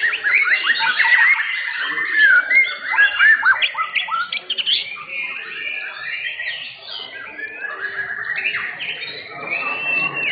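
White-rumped shamas (murai batu) singing in competition, several birds overlapping in fast whistled phrases full of quick rising and falling sweeps. The singing eases off a little about halfway through.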